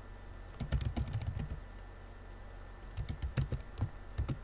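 Computer keyboard typing as an email address is keyed into a form: two quick runs of keystrokes with a pause of about a second and a half between them.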